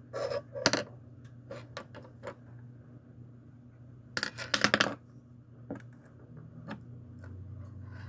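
Metal clicks and clatter from a heavy-duty assisted-opening folding pocket knife being handled, with a loud cluster of rapid clicks a little past four seconds in.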